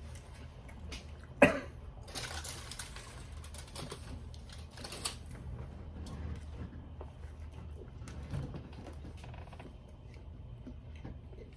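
Close-up chewing and crunching of food, with a sharp knock about a second and a half in and scattered crunchy bursts after it.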